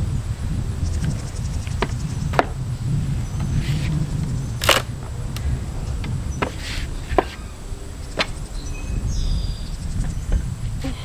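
Sharp knocks and cracks of wood at uneven intervals, the loudest about halfway through, over a steady low rumble: pallet boards being pried and knocked loose with a pallet buster.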